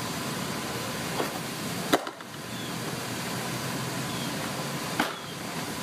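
Baseball smacking into a leather glove about two seconds in, a pitch caught in the catcher's mitt, then a second sharp glove pop about five seconds in as the ball comes back, over a steady background hiss.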